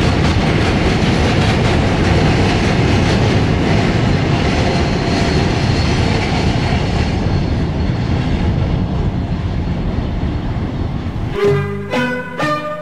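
Steady rolling noise of a phosphate train's hopper wagons running on the rails, slowly fading as the end of the train moves away. Music starts near the end.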